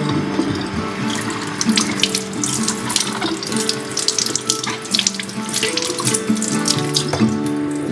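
Kitchen tap running water over cucumbers being rubbed clean by hand, splashing steadily into a metal sink. Background music plays underneath.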